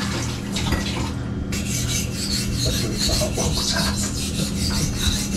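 Dull kitchen knife being sharpened on a wet sharpening stone: quick, repeated scraping strokes of the blade across the stone, with a short pause about a second in.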